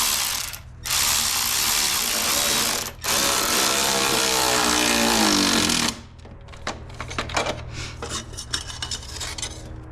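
Handheld power driver running in three bursts, the last and longest with its motor pitch falling steadily as it slows under load while tightening a fastener down. Lighter clicks and ticks follow.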